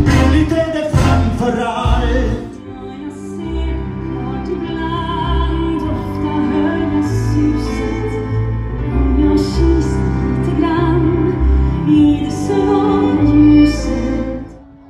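Music: a singer holding long, wavering notes over instrumental accompaniment with a steady bass. It fades out just before the end.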